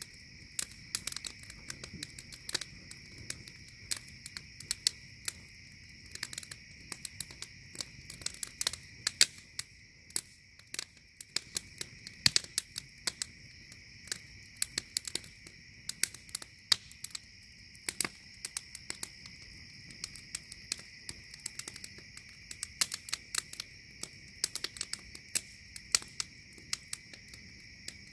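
Wood fire crackling, with many sharp, irregular pops and snaps from burning split logs. Behind it is a steady high trill of night insects.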